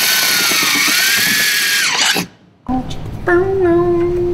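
Cordless drill boring a new hole into the plastic kayak hull through the slot of an aluminium motor-mount bracket, its whine dipping and recovering in pitch as it is leaned on, then stopping suddenly about two seconds in. After a short pause a steady held low tone comes in with some handling noise.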